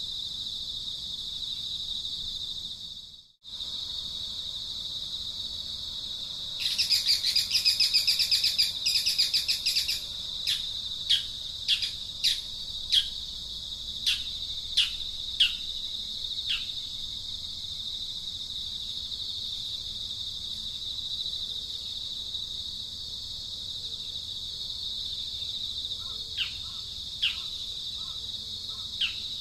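Outdoor birds and insects: a steady high insect drone, with bird calls over it. The birds give a rapid chattering burst about seven seconds in, then a run of short falling whistles, and a few more near the end. The sound drops out briefly near the start.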